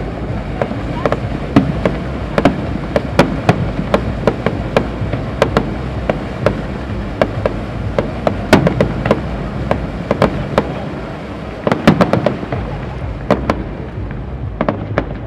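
Fireworks display: aerial shells bursting in an irregular run of sharp bangs, several a second at times, thickest about halfway through and again a few seconds later, over a steady low rumble.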